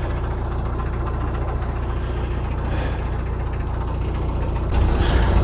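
Narrowboat's diesel engine running steadily at low cruising revs, growing louder near the end.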